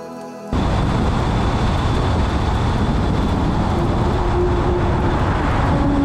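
A car driving, with loud, dense engine and road noise that cuts in suddenly about half a second in, after a few faint, fading notes of music.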